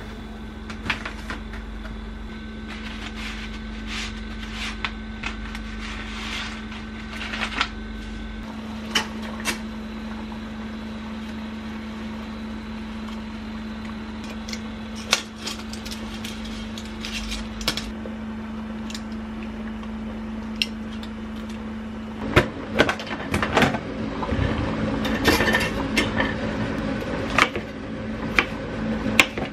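Kitchen cooking sounds over a steady low hum: scattered clicks and rustles as dry spaghetti is handled and put into a pot on an induction hob. About three quarters of the way in, a kitchen knife starts slicing a bell pepper on a wooden cutting board, a quick run of sharp knocks.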